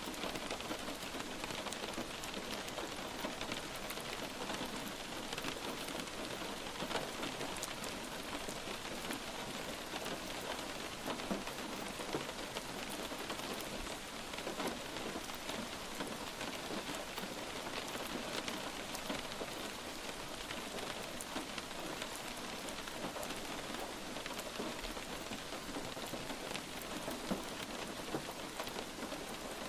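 Light rain falling steadily, with a dense patter of individual drops striking a surface.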